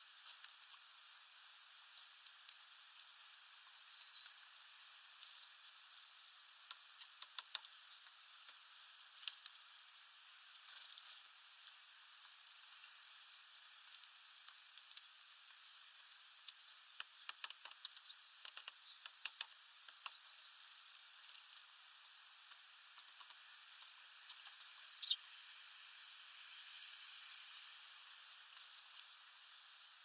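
Eurasian tree sparrows and a great tit pecking at sunflower seeds on a feeder tray. Their beaks make bursts of quick taps and clicks as seeds are picked up and cracked, with one louder sharp note late on.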